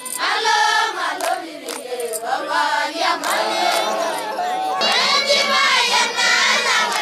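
A group of young Maasai girls singing together in a traditional chant, many voices overlapping, with a few sharp hand claps.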